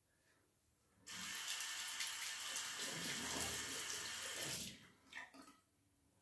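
Bathroom tap running into a sink for about three and a half seconds, then turned off, followed by a few small knocks.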